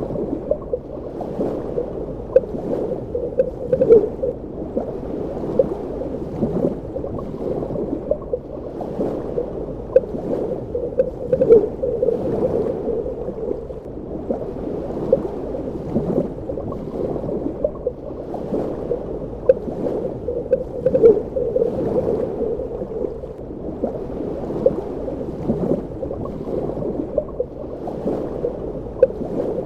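Underwater ambience: a steady, muffled wash of moving water with irregular bubbling and gurgling pops throughout.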